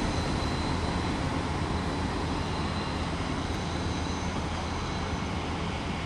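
Seaside Liner diesel train pulling away down the line, a steady low rumble of engine and rail noise slowly fading as it recedes.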